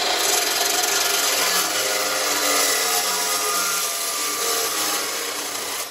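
SteelMax dry-cut chop saw with a Diablo steel-cutting blade sawing through thick-walled 2 3/8 inch drill pipe at an angle, a loud steady cutting noise of the blade in the steel. The sound drops near the end as the cut finishes.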